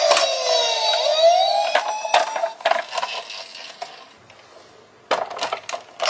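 Toy police car's electronic siren wailing, cutting out about two and a half seconds in. Then clicks and knocks of the plastic toy being handled and set down on wood.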